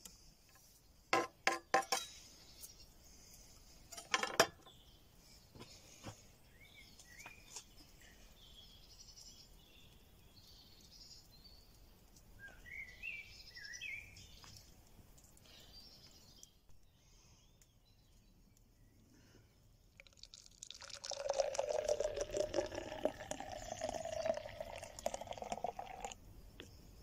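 A few knife strokes chopping garlic on a wooden board, then a single knock. Faint bird chirps follow. Near the end, Guinness is poured into a pint glass for about five seconds.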